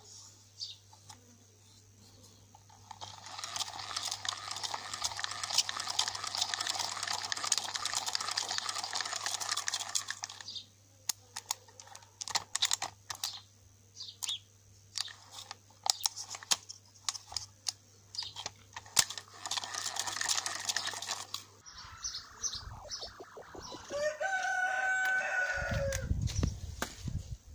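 Old Soviet spinning reel cranked by hand, its gears whirring with a rapid fine clicking in two runs of several seconds each, with single clicks between. Near the end a rooster crows once.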